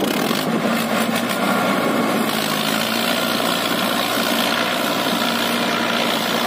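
Mahindra Arjun Ultra-1 555 DI tractor's four-cylinder diesel engine running loud and steady under load as the tractor works through deep mud. The engine picks up right at the start, then holds even.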